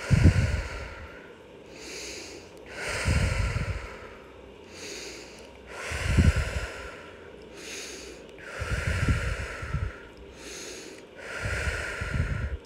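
A woman's slow, deep breathing in and out, about four breath cycles of roughly three seconds each; the stronger breaths carry a low rumble of air on the microphone.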